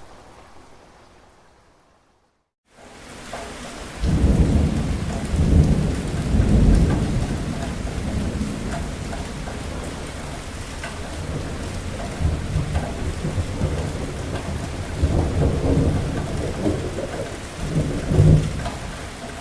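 Rain fades out to a brief silence, then comes back as steady heavy rain. About a second later deep rolling thunder starts and swells several times, loudest near the end.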